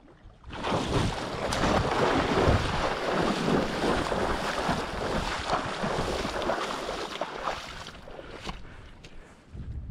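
Heavy splashing and thrashing in shallow river water close to the camera, starting suddenly about half a second in and lasting some seven seconds before dying away, with a couple of sharp knocks: the struggle with a muskrat that bit the angler's foot and was struck with his fishing rod.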